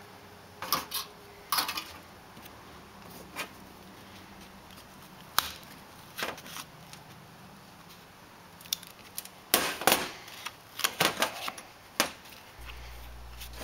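Scattered sharp clicks and clatters of metal parts and hand tools handled on a stainless steel workbench as a waste oil burner nozzle assembly is taken apart, with a quicker run of clicks about ten to eleven seconds in.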